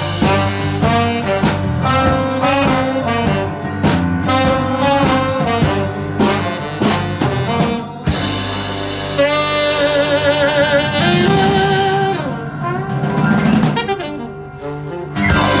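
Small jazz-style band with saxophone, trumpet, acoustic guitar, bass and drums, playing a steady beat with horn lines. About halfway through the beat stops and the horns hold long notes with wide vibrato, fading away, with one sharp accent near the end.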